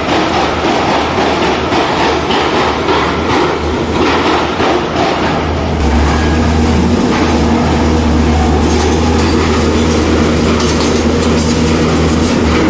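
A train running on the track: a loud, steady rumble with rail noise. A steadier low engine drone comes in about halfway through.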